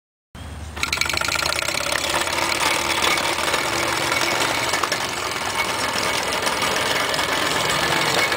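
Mamod TE1A toy steam tractor's small oscillating-cylinder steam engine running under its own steam, giving a fast, steady chuffing with a hiss of escaping steam. It cuts in just after the start and runs on evenly.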